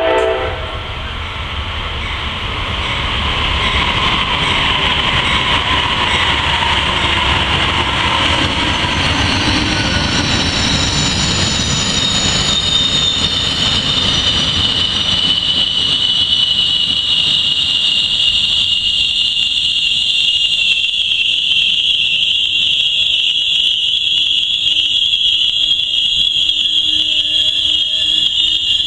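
Amtrak Silver Meteor passenger train rolling into the station and braking. The low rumble of the cars fades as it slows, while a loud, steady, high-pitched squeal from the wheels and brakes builds from about ten seconds in and holds as the train comes to a stop.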